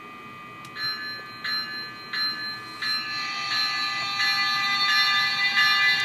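A bell ringing in a steady rhythm, about three strikes every two seconds, starting about a second in, over a steady hum from the passing HO-scale model train. About halfway through, a steady buzzing tone joins and the sound grows louder.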